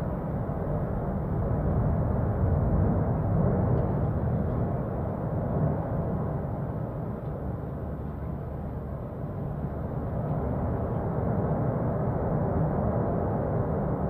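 Cumbre Vieja volcano erupting: a deep, steady rumble that swells and eases every few seconds.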